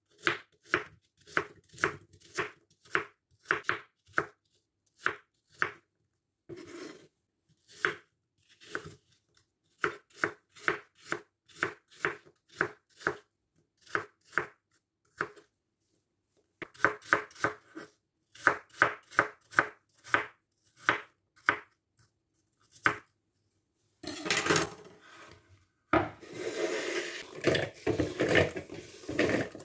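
Kitchen knife chopping peeled apples on a wooden cutting board: sharp knocks about two a second, in runs with short pauses. Near the end the chopped apple pieces are scraped off the board and tumble into a glass bowl.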